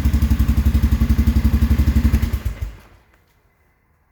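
Polaris Sportsman 500 HO ATV's single-cylinder four-stroke engine idling with an even beat, running smoothly on a replacement stator, then shut off a little over two seconds in and dying away.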